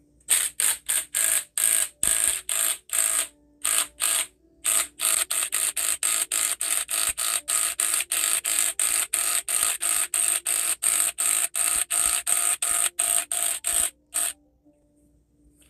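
Cordless impact wrench turning the forcing screw of a ball joint press, pressing a new bushing into a control arm. It runs in short rapid bursts, a few scattered ones at first and then about four a second, and stops near the end.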